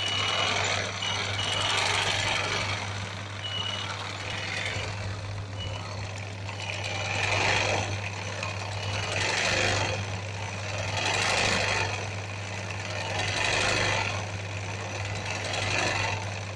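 Belt-driven sewing machine stitching hand-guided hoop embroidery: a rapid needle rattle over a steady motor hum, swelling and easing about every two seconds as the hoop is moved.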